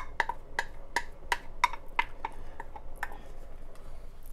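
A wooden spoon stirring chili in an enameled Dutch oven, knocking against the pot several times a second. The knocks stop about three seconds in.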